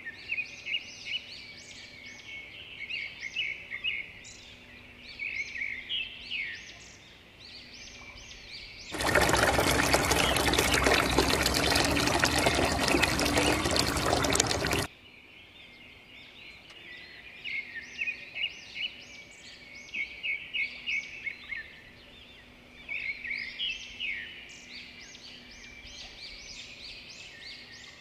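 Birds chirping in quick, repeated trills throughout. About nine seconds in, a loud, steady rush of water pouring from a pipe into a basin begins, lasts about six seconds and cuts off suddenly.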